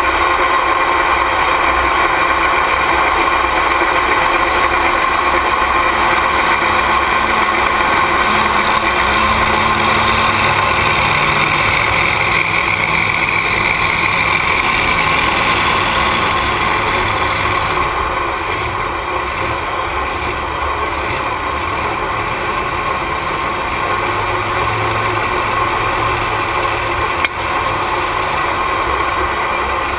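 Engine idling steadily, with one sharp click about 27 seconds in.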